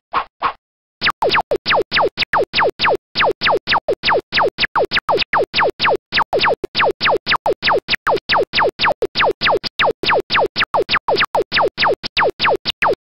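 Slide-animation sound effect: a short electronic 'pew' that falls quickly in pitch, repeated about four times a second as slide text appears letter by letter, after a brief pause near the start.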